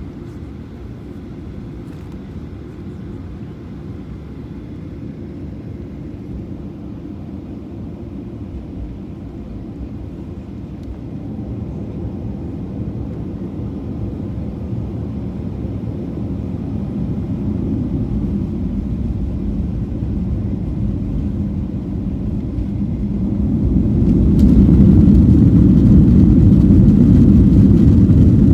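Airplane engines during a takeoff run: a low rumble that grows steadily louder, then rises sharply near the end.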